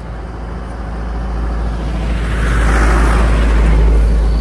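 A motor vehicle passing close by on the road, its sound building to a peak about three to four seconds in and then easing, over a steady low rumble of wind on the microphone.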